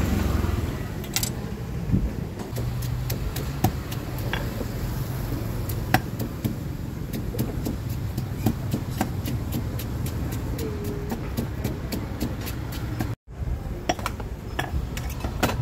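Stone mortar and pestle pounding chili paste: a steady run of short knocks, about three a second, over a steady low background rumble.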